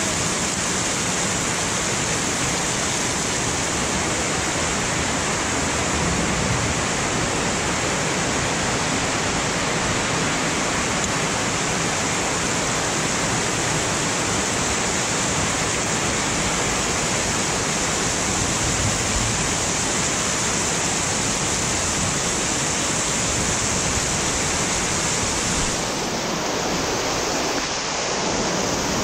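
Heavy tropical downpour, a dense, steady hiss of rain with no let-up.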